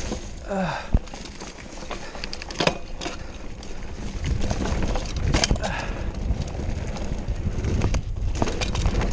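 Mountain bike ridden fast down a dirt singletrack: a steady rolling rumble with sharp clicks and rattles as the bike jolts over bumps, the sharpest about a second in.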